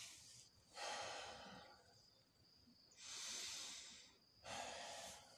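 A man breathing deeply and audibly as he recovers from nauli kriya, the breath-held abdominal rolling exercise. There are three long breaths, each about a second, with short pauses between them.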